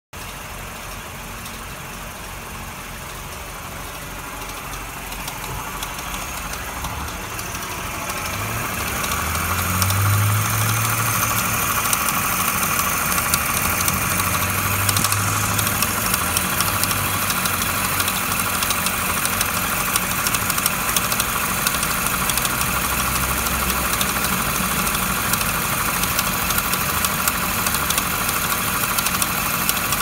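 MINI R60 Crossover engine running with the abnormal noise of a deteriorated water pump pulley, whose rubber friction surface has broken away. The noise grows louder over about the first ten seconds, then holds steady as a constant mechanical whirr over a low engine hum.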